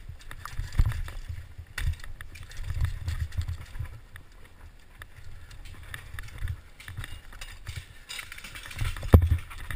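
Giant Faith 2 downhill mountain bike rattling and jolting over rocks and roots, heard through a helmet-mounted camera: irregular low thuds with scattered sharp knocks, the loudest knock about nine seconds in.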